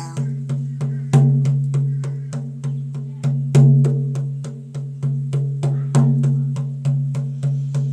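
Hide frame drum beaten by hand in a steady rhythm of about three beats a second, each beat leaving a deep ringing tone, with a few beats struck harder than the rest.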